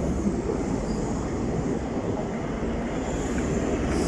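High-speed diesel train (InterCity 125) departing: Mark 3 coaches rolling past with a steady rumble of wheels on rail, while the rear Class 43 power car's diesel engine draws closer. The low rumble grows near the end.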